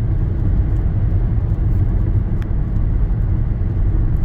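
Steady low road and engine rumble inside a moving car, with one faint tick about two and a half seconds in.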